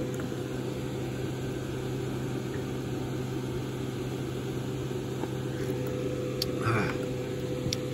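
A steady mechanical hum: a low drone with a higher steady tone over an even whirring noise, unchanging throughout.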